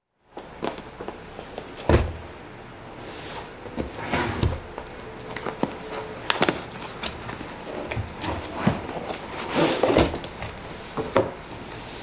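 Cardboard product box handled on a wooden tabletop: a thump just before two seconds in, then a run of knocks, scrapes and rustles as the box is opened and its canvas carry bag is pulled out and set on the table.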